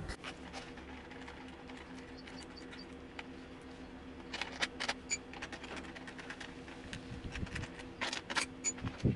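Sharp clicks and light plastic knocks as the air filter cover and housing are taken off a Honda GCV160 mower engine by hand, bunched about four to five seconds in and again near the end, over a faint steady low hum.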